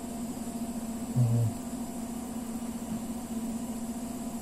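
Steady low electrical hum of room tone, with a brief low murmur from a man's voice about a second in.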